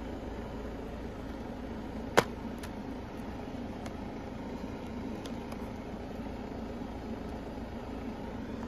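A plastic DVD case snapping open with one sharp click about two seconds in, followed by a few faint clicks, over a steady background hum.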